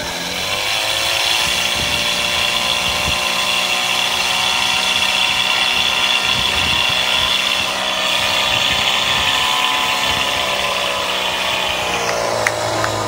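Portable fire pump's engine revving up and running at full throttle while it pumps water through the attack hoses to the jets, then dropping back in revs near the end. A few sharp clicks follow as it slows.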